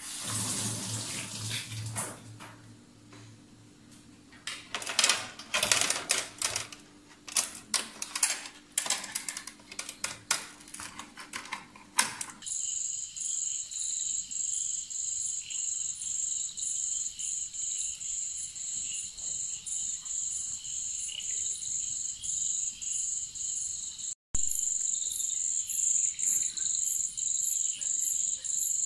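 A kitchen tap runs and water splashes onto a plate, with a string of sharp clicks and knocks from handling. About twelve seconds in this gives way to crickets chirring: a steady high tone pulsing evenly, about twice a second.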